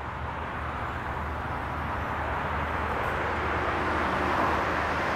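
Road traffic: engines and tyre noise of passing cars, a steady hum slowly growing louder.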